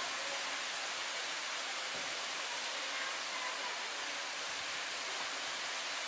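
Small waterfall cascading down a rock face: a steady, even rush of water.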